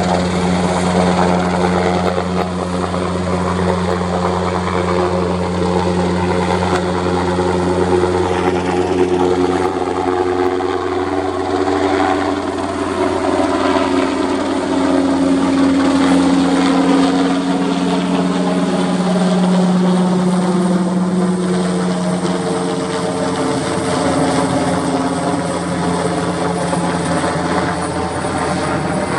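Military helicopter's rotors and turbines running steadily and loudly for the whole stretch, with the tone shifting slowly as the helicopter moves.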